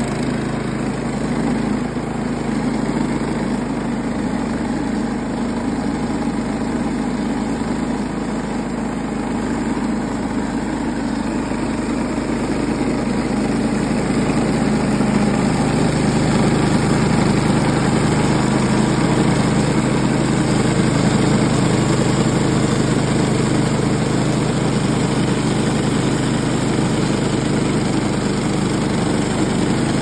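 Woodland Mills HM130MAX portable bandsaw mill running steadily on its Kohler engine while the band blade saws lengthwise through a black birch log.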